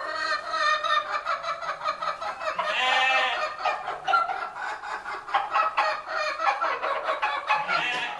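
A flock of barnyard fowl clucking and calling in a dense, overlapping chatter of quick stuttering notes, with a longer call about three seconds in.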